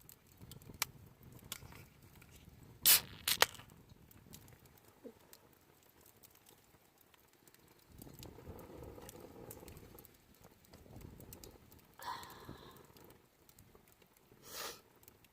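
Handling noises: scattered light clicks and crinkling, with a loud sharp crinkle about three seconds in and shorter ones near the end.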